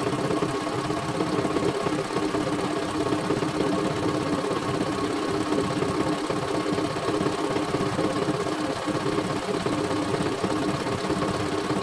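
CNY E900 computerized embroidery machine stitching out a test design, its needle running steadily at a fast even pace while the hoop carriage shifts the frame.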